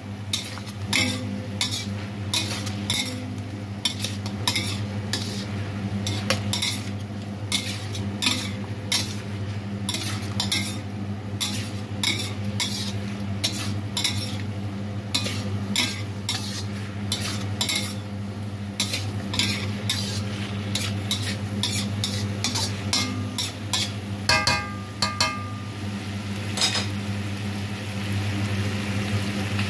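Metal spatula stir-frying chicken and vegetables in a stainless steel wok: repeated scrapes and clinks against the pan about once or twice a second over a light sizzle, with a steady low hum underneath and one brief ringing clink near the end.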